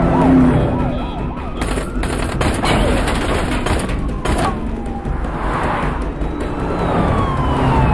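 Police car siren yelping in rapid up-and-down sweeps, then a long falling tone near the end, with a few gunshots cracking through the middle, in a film soundtrack mix.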